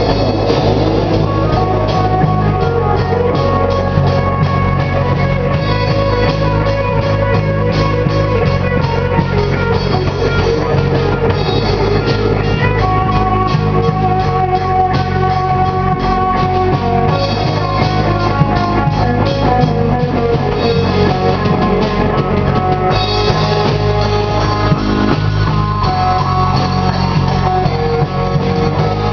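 Stoner rock band playing live: electric guitar over a drum kit with steady crashing cymbals.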